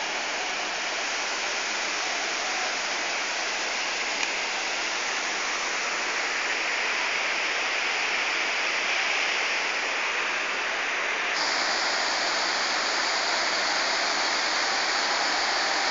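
Waterfall cascading over rocks: a steady, loud rush of falling water, its tone turning a little brighter about two-thirds of the way through.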